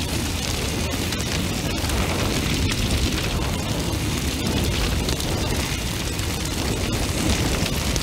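Intense fire burning: a steady, dense rush of flames, heaviest in the low end, with light crackles scattered through.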